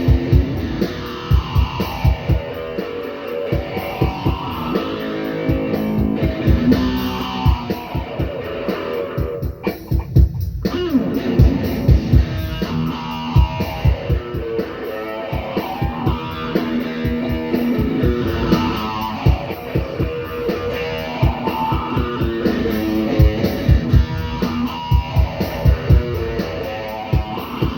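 Instrumental passage of a rock song: guitar over bass with a steady beat, and no singing.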